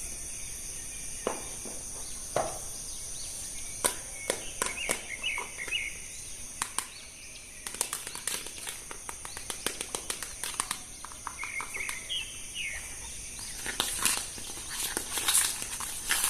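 Scattered clicks and crackles of plastic toy packaging and figures being handled. Behind them runs a steady high-pitched outdoor drone, with a few short bird chirps about four to five seconds in and again near twelve seconds.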